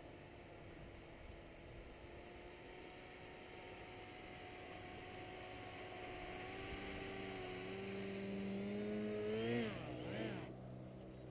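Paramotor engine of a powered paraglider drawing closer and growing louder, then dropping sharply in pitch about nine and a half seconds in as it throttles back for the landing.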